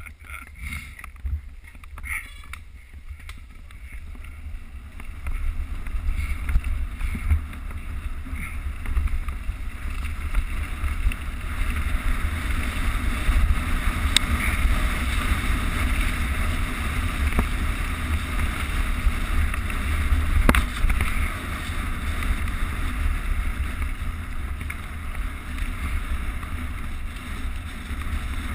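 Wind buffeting the microphone of a mountain bike's camera, over the low rumble of tyres rolling along a dirt trail; it grows louder a few seconds in as the bike picks up speed, with two sharp clicks or knocks later on.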